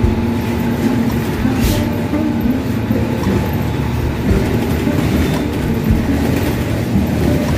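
Inside a moving city bus: steady, loud engine and road rumble heard through the cabin.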